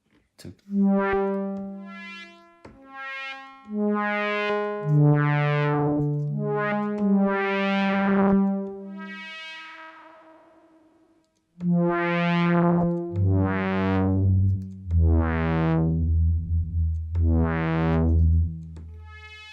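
Dave Smith Instruments Tempest playing a sawtooth synth pad patch, one sustained chord after another. The brightness swells up and dies back on each chord. After a short break about halfway through, deep bass notes come in under the chords.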